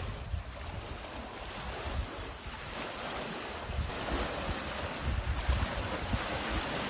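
Small waves washing onto the shore, the wash swelling about halfway through. Gusts of wind buffet the microphone now and then.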